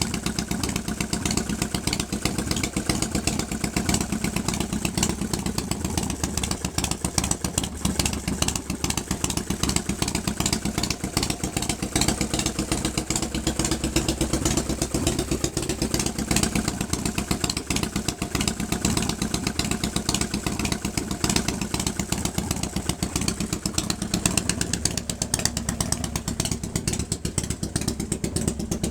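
1997 Harley-Davidson Fat Boy's 1340 cc Evolution V-twin idling steadily, just after a hard start from sitting a month; the owner puts the hard start down to a dry carburetor float bowl and an air pocket in the fuel line.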